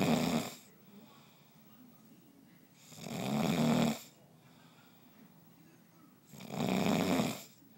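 Someone asleep snoring steadily: one snore trailing off at the start, then two more, each about a second long and roughly three and a half seconds apart.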